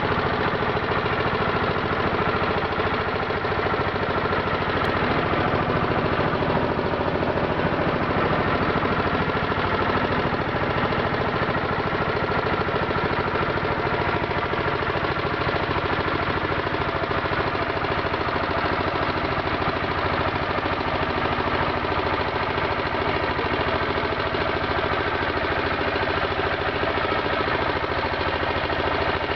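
A motorboat's engine running steadily, heard from on board, with an even hum and no change in speed.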